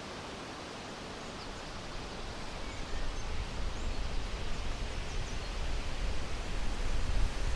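Outdoor ambience: a steady rushing hiss, with wind buffeting the microphone as a low rumble from about three seconds in, and a few faint high chirps.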